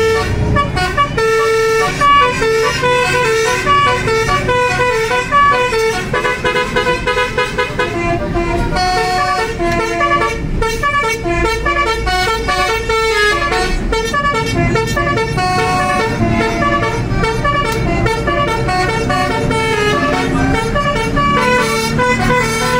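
A tour bus's Basuri multi-tone melodic horn playing a running tune of short, steady notes, over the low rumble of the bus's engine.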